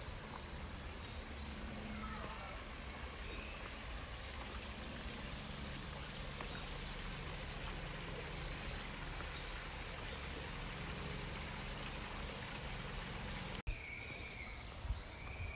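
Steady rushing outdoor ambience, an even hiss like running water or wind in foliage. Near the end the sound drops out briefly, and after it a thin, high, wavering call starts up with short breaks.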